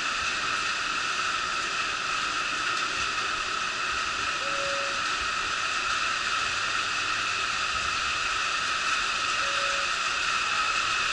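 Steady whirring hiss of a stationary Ohmi Railway electric train's on-board equipment running while it stands at the platform. A short faint beep sounds about every five seconds.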